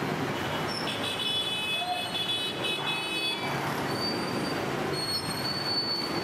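Busy street traffic of jeepneys, motor tricycles and motorcycles running, with high-pitched metallic squeals, one from about a second in and a higher one later on.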